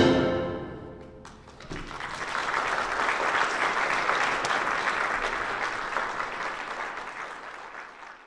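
A wind band's final chord dies away in the hall's reverberation during the first second, then the audience applauds steadily, the clapping fading out near the end.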